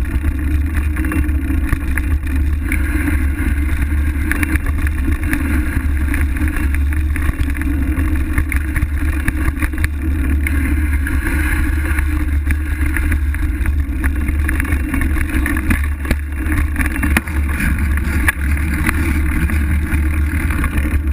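Steady rush of riding noise from a fat-tire bicycle rolling along a dirt trail: wind buffeting the handlebar camera's microphone over the hum of the wide tyre on the dirt.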